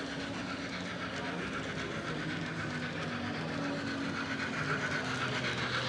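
Model steam locomotive running with simulated steam-engine sound from its onboard sound decoder, a steady hiss.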